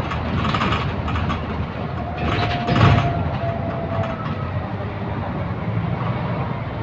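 Bus running, with a steady engine and road noise and rattles. A louder bump comes about three seconds in, followed by a brief faint squeal.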